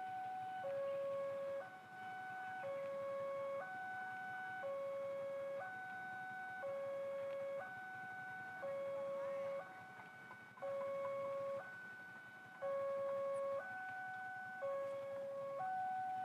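Railway level-crossing warning alarm: an electronic two-tone signal that alternates evenly between a higher and a lower tone, each held about a second. It sounds while the barrier is down, warning of an approaching train.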